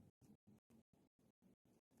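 Near silence: a very faint sound chopped into even pulses, about four a second, with dead silence between them.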